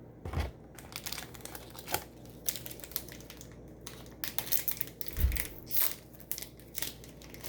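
Irregular crinkling and rustling of a trading-card booster pack wrapper being handled, with a couple of soft low thumps.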